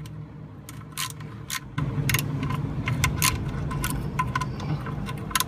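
Ratchet and socket working loose the turbo oil line fitting under a VW Jetta 1.8T engine: scattered sharp metal clicks and clinks, one to three a second. A low rumble joins them about two seconds in.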